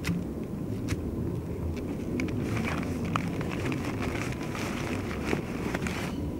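Strong wind buffeting the microphone as a steady low rumble. Over it, rustling and clicking as a rucksack and its contents are rummaged through by hand, busiest from about two seconds in until shortly before the end.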